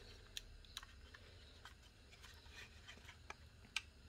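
Faint clicks and creaks of the Aneng AN113B multimeter's plastic case being squeezed to release its snap-fit clips, with one sharper click near the end.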